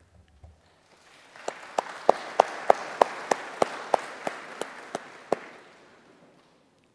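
Church congregation applauding, rising about a second and a half in and fading out near the end, with one nearby pair of hands clapping loudly about three times a second over the crowd.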